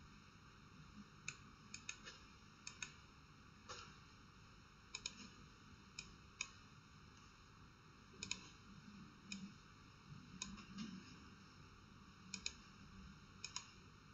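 Faint computer mouse clicks, single and in quick pairs, scattered irregularly.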